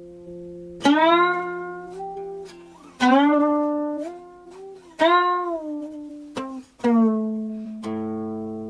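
Background music: a slow melody on a plucked string instrument, a note struck about every two seconds and left to ring and fade, with the pitch bent soon after each pluck.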